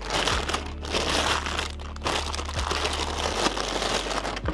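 Clear plastic bag crinkling and rustling in the hands as a compact camera is pulled out of it, in a close run of crackly bursts.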